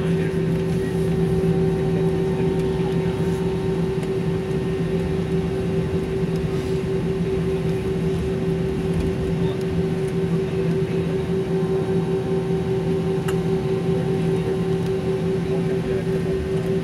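Airliner cabin noise while taxiing: a steady drone with constant low tones from the jet engines running at low thrust.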